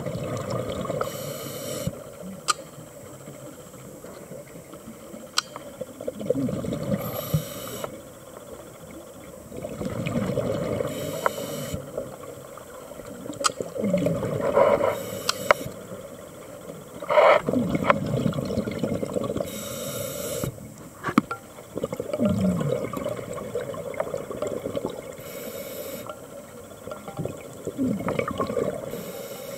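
Scuba regulator breathing heard underwater: a short hiss of inhalation through the regulator, then a longer burble of exhaled bubbles, repeating every five or six seconds. Scattered sharp clicks sound between the breaths.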